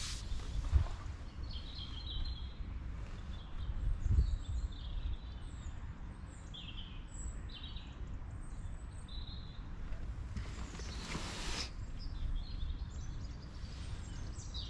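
Small birds chirping and singing on and off over a low background rumble, with a couple of dull bumps about a second and about four seconds in and a brief rushing noise around eleven seconds.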